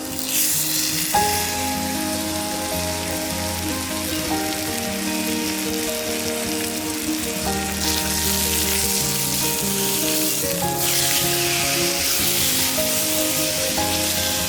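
Food sizzling as it fries in a pan: a steady, dense hiss that starts and stops abruptly. Background music plays throughout.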